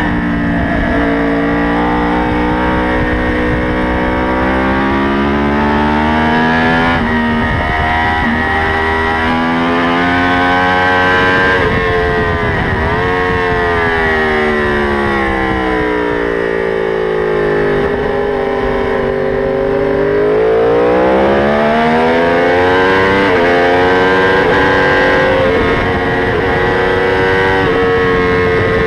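Sport motorcycle engine heard onboard at racing speed, with wind rush over the fairing. Its pitch climbs with short breaks at upshifts, sinks for several seconds near the middle, then climbs hard again.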